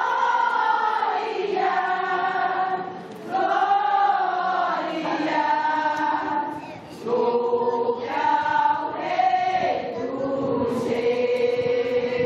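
Women's choir singing a piece from a Christmas cantata in long phrases, with brief breaks about three and seven seconds in, ending on a long held note.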